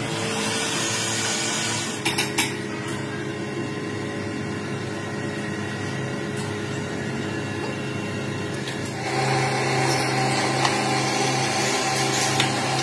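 Workshop power tool or machine running steadily, with a few sharp knocks about two seconds in, growing louder with a stronger low hum from about nine seconds in.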